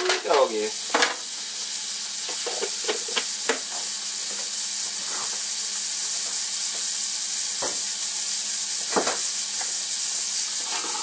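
Butter sizzling as it melts in a hot cast-iron skillet: a steady frying hiss that builds slightly over the first few seconds and then holds.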